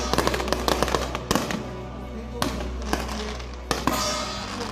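Aerial fireworks going off overhead: a rapid, irregular run of sharp bangs and crackles, with music playing underneath.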